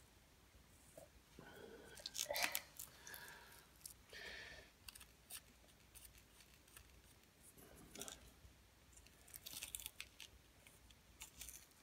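Faint, scattered clicks, crunches and rustles of hands working a small plastic battery cartridge filled with carbon granules: the carbon being patted down and the cartridge parts pressed together.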